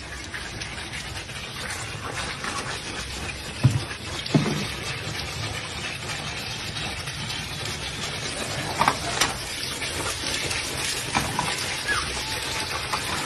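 Steady rush of floodwater across the floor of a flooded room, with a couple of short knocks or splashes about four seconds in.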